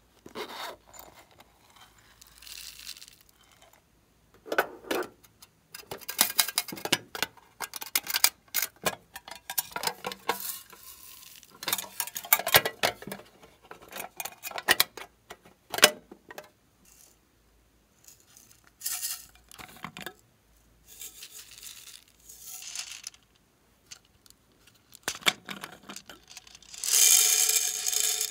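Hands handling small decorative cases and a metal tin: repeated clicks, taps, knocks and rattles as lids are opened and contents shifted. About a second before the end, a louder hissing squirt as a plastic squeeze bottle is poured.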